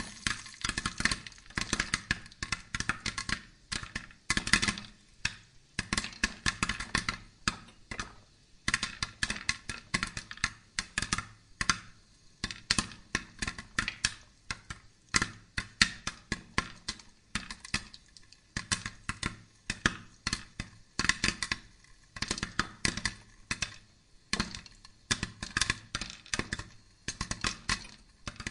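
Rapid, irregular clicking and clattering in quick bursts of several sharp clicks at a time, from a charcoal brazier where corn cobs are being roasted, tended and fanned by hand.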